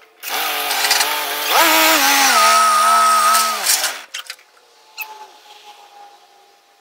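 Compact tractor's small engine running close by at high revs, its pitch stepping up about one and a half seconds in and holding steady, then sinking as the engine shuts off near four seconds, followed by a few clicks.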